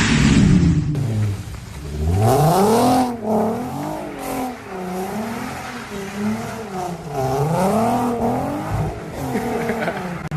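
Turbocharged VW Golf R32 Mk4's VR6 engine revving. A loud run at the start falls away over the first second, followed by a series of throttle blips, the revs rising and falling again and again.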